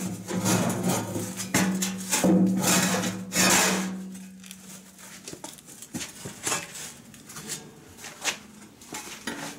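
Snowblower auger and shaft assembly being pulled out of its steel auger housing: metal clanking and scraping as the auger flights and shaft drag against the housing, loudest in the first four seconds over a low steady drone, then scattered lighter knocks.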